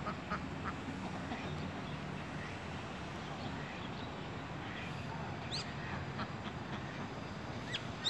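Mallards and white domestic ducks quacking now and then over a steady background hiss, with a brief high chirp a little past the middle.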